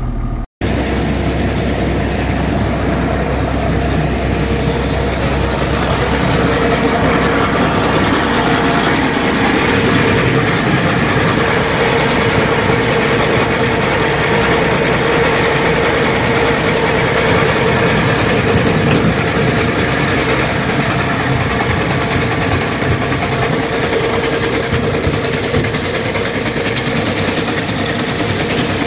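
Tractor engine running steadily, with a constant tone through the engine noise.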